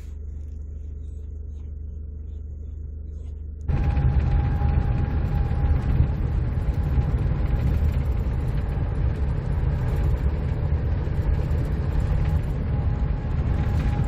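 Campervan cabin noise while driving: engine and road rumble heard from inside the van. It starts as a quiet low hum, then about four seconds in jumps suddenly to a louder, rougher rumble that carries on steadily.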